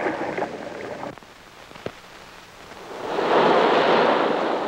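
A rushing, surf-like noise on an old film soundtrack swells up about three seconds in and slowly dies away, after a quieter stretch of hiss with a single faint click.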